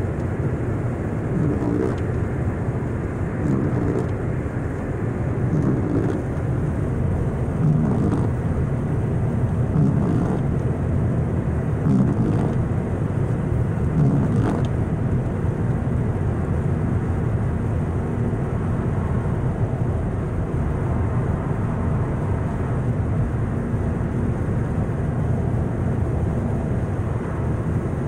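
Steady road and engine noise heard from inside a car's cabin at highway speed, with the tyres running on wet, slushy pavement.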